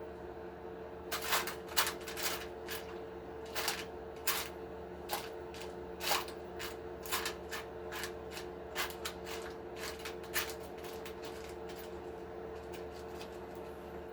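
Small parts clicking and rattling under the hands, irregular light clicks over about ten seconds, as someone rummages for a 1 mm shim, with a steady hum underneath.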